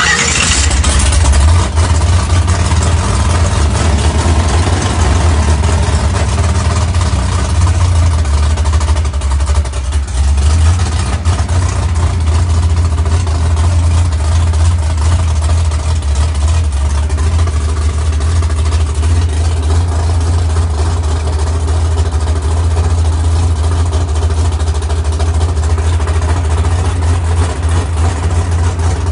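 Drag race car's engine firing up suddenly and running steadily at idle, loud, with a deep rumble.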